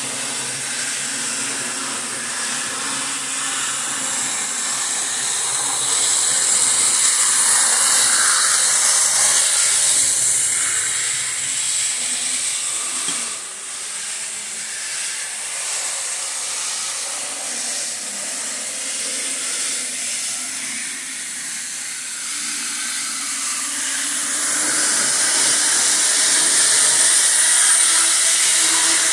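Model steam train running on the layout: a steady hiss with a low hum beneath it. It swells for a few seconds about a quarter of the way in and again near the end.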